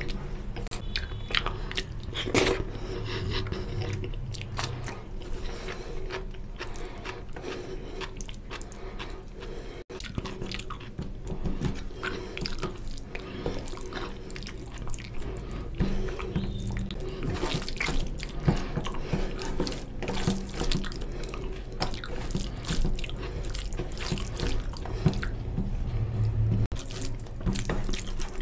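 Wet squelching of a hand kneading rice into oily mutton fat curry on a steel plate: a dense, continuous run of small sticky smacks and clicks as the fingers squeeze the food and touch the plate.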